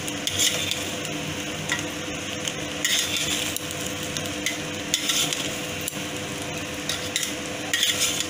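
A metal spatula stirs and scrapes cooked rice in an aluminium pot, with a few short clattering scrapes against the pot's side.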